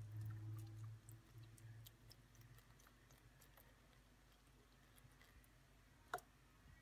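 Near silence: faint room tone with a low hum in the first two seconds, a few faint ticks, and one short click about six seconds in.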